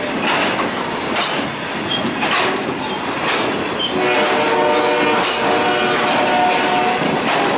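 Ballast hopper cars of a slow freight train rolling past, steel wheels clicking over rail joints about once a second over a steady rumble. About halfway through, a steady chord of train-horn tones joins in and holds for a few seconds.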